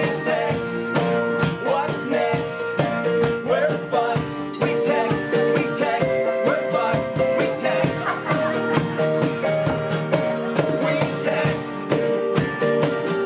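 Live band playing a song: strummed guitar chords over a steady, busy beat of hand percussion, with a singing voice.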